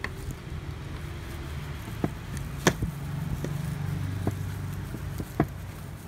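Scattered light clicks and knocks of a screwdriver and metal screws being handled while the housing screws of a rotary hammer drill are taken out; the sharpest knock comes about two and a half seconds in.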